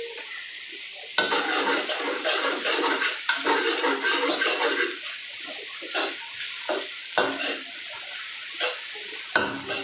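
Garlic sizzling steadily in hot oil in a frying pan while a spatula stirs and scrapes the pan. The scraping runs almost continuously from about a second in, then thins to a few separate scrapes in the second half. The garlic is being browned.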